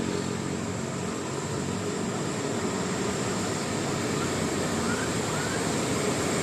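Steady vehicle engine and road noise, an even drone with no horn sounding.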